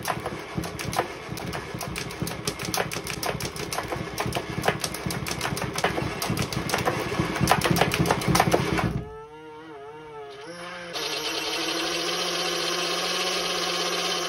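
A Halloween toy's small electric motor, overvolted from a bench power supply to about 9–12 V, rattles with rapid clicking as its two flexible arms flail. About nine seconds in, the rattling stops and a warbling tone follows, then a steady hum that cuts off at the end.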